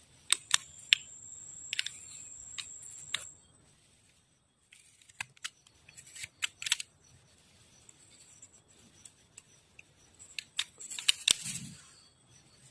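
Small hand-work noises: scattered sharp clicks and taps with brief scraping, and a denser burst of clicking and rasping about eleven seconds in. A faint high whine runs through the first three seconds.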